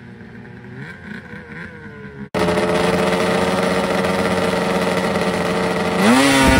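Faint snowmobile engines revving up as sleds race up a hill, then, after a cut, a snowmobile close by running steadily and loud at the start line before its engine pitch rises sharply near the end as it revs for the launch.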